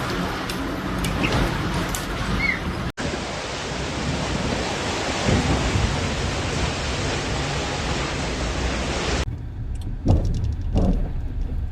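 Steady rushing noise with no clear tone, broken by an abrupt dropout about three seconds in. Near the end it switches suddenly to a quieter, thinner noise with a few low thumps.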